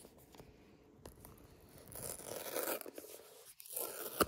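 Paper seal being peeled from an iPhone 14 Pro box. There is a rustling tear about two seconds in, another shorter one near the end, and a sharp click just before it stops.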